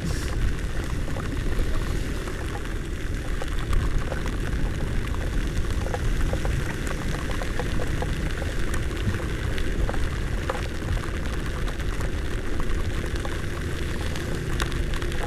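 Wind rush and heavy rain on a helmet camera's microphone while riding a motor scooter through a storm, a steady low rumble with raindrops ticking against the microphone.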